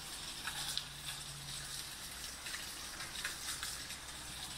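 Steady rush of water running down a small runoff stream, with a faint low hum underneath.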